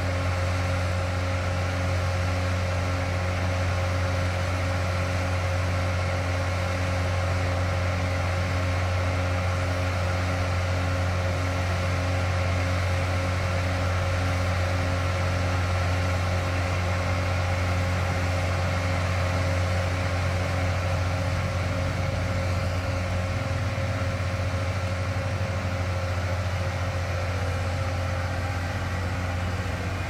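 A Blaw-Knox PF400-A tracked asphalt paver's John Deere four-cylinder turbo diesel engine running at a steady speed, with a constant low hum.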